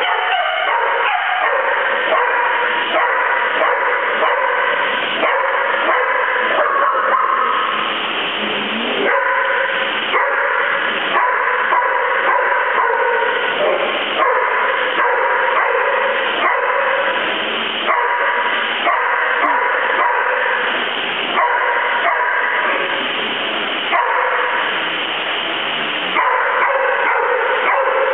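Dogs barking and yipping almost without pause, many barks overlapping one another.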